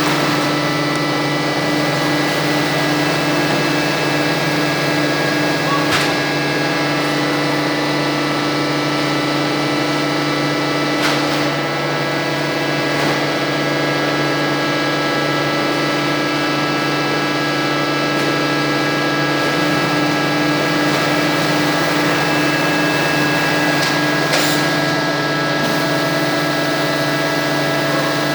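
Rotary veneer lathe machinery running steadily: a constant hum with several steady whining tones, broken by a few sharp clicks.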